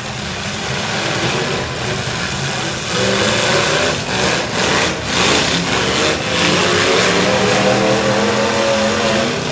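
Demolition derby pickup truck engines revving hard, climbing in pitch about three seconds in and held at high revs, with a few sharp bangs of trucks ramming each other around the middle.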